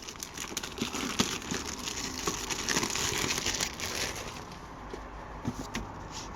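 Card packaging being handled: a dense crinkling and rustling, strongest in the first few seconds and then easing off, with a few small clicks.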